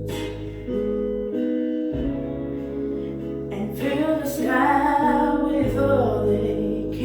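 Music: a song with guitar and a sung vocal line that swells about four seconds in.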